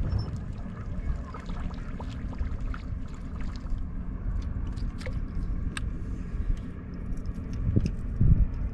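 Bass boat's electric trolling motor humming steadily, with scattered small clicks and two dull thumps near the end.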